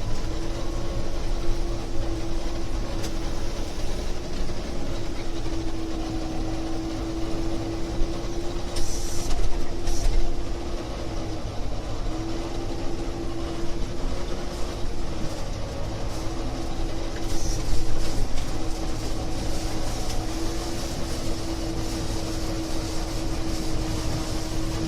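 Gleaner E combine running steadily while harvesting corn: a deep machine rumble under a steady whine that drops out briefly a few times, with two short louder rushes of hiss, one about nine seconds in and one about seventeen seconds in.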